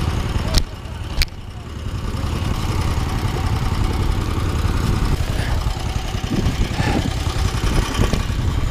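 Small petrol engine of a motorized towing dog (snow tow unit) idling steadily. Two sharp clicks come about half a second and a second in, and the engine sound is quieter for about a second after them.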